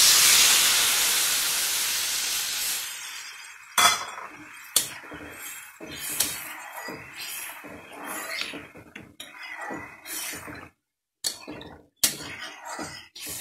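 Water poured into a hot kadai of oil-fried pumpkin pieces hits the oil with a loud sizzle that fades away over about three seconds. After that a steel spatula scrapes and clinks against the pan as the pumpkin is stirred in the liquid.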